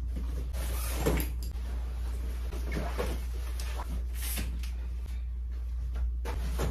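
Luggage being handled: a few knocks and rustles as suitcases are moved and a backpack and tote bag are picked up, over a steady low room hum.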